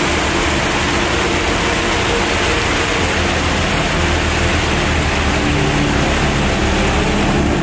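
Muddy slurry pouring from a vacuum street sweeper's opened rear sewage-tank door onto the ground, a steady rushing splash. The truck's engine runs underneath.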